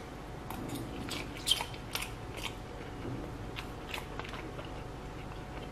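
A person chewing a mouthful of roast chicken, with scattered small clicks and smacks, the most distinct about one and a half to two seconds in.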